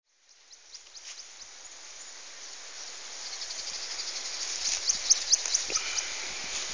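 Outdoor ambience of birds chirping, short sharp calls that grow more frequent after about four seconds, over a steady high insect hiss, fading up from silence.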